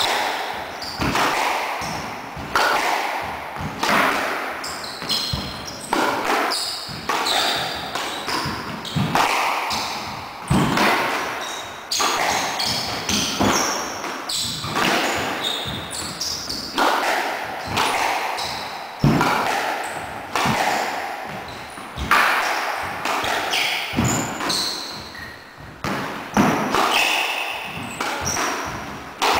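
Squash rally: the ball is struck by rackets and smacks against the court walls again and again, one or two sharp echoing hits a second. Short high squeaks from the players' shoes on the wooden floor come between the hits.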